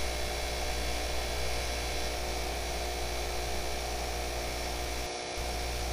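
Bench grinder running steadily with a polishing wheel, a constant motor hum and hiss as a Damascus steel knife blade is held against the wheel for final buffing.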